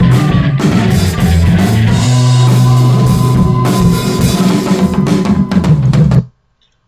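Psychedelic rock band music playing back, with drum kit, bass and electric guitar. It cuts off abruptly about six seconds in when playback is paused.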